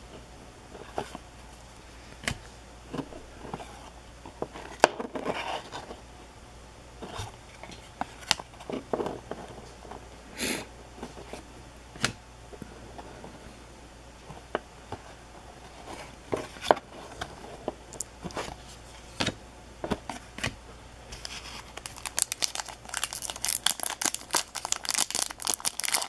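Hockey trading cards being handled and slid off a stack one at a time, giving scattered soft clicks and rustles. Near the end the plastic wrapper of a new card pack is torn open and crinkles continuously.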